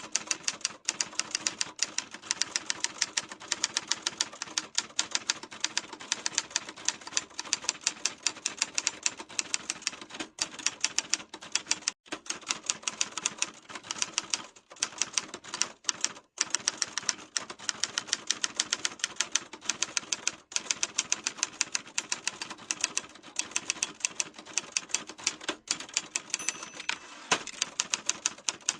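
Typewriter being typed on steadily: a fast, continuous stream of sharp key strikes, several a second, broken by a few brief pauses about halfway through.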